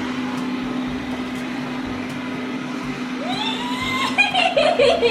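Lydsto R1 robot vacuum running steadily, a constant motor hum with the whir of its brush. About three seconds in, a high voice starts singing over it.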